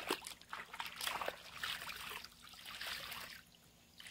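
Water splashing and trickling in irregular bursts as wet laundry is rinsed and wrung out by hand, stopping about three and a half seconds in.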